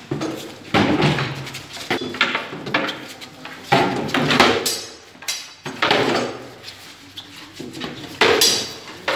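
Wooden practice swords striking wooden round shields and each other in several sparring bouts: sharp, irregular knocks and clacks, echoing off the concrete of a parking garage.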